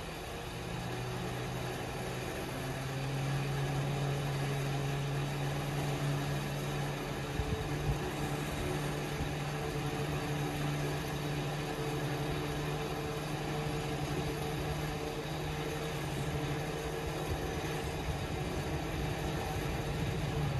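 A motor running at a steady speed: a low, even hum with a few steady tones above it, growing a little louder a few seconds in, with a couple of faint knocks partway through.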